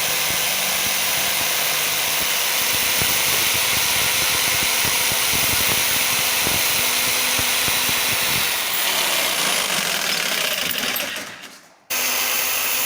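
Electric jigsaw running as it cuts through wood. The motor winds down about eleven seconds in, then starts again abruptly and runs briefly.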